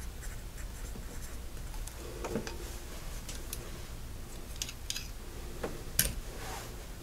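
Pencil scratching on a paper sticky note, then light clicks and taps of small parts being handled, with a sharp click about six seconds in as the loudest sound.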